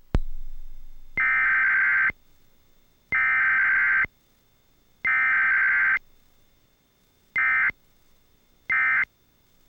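Emergency Alert System SAME data bursts sent for a required weekly test: three buzzy digital warbles of about a second each, then three much shorter end-of-message bursts, with no attention tone between them.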